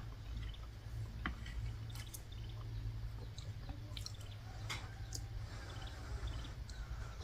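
Someone eating soupy wild mushroom curry with a metal spoon from a ceramic bowl: a few short clinks and clicks of spoon on bowl and wet mouth sounds of eating, over a steady low hum.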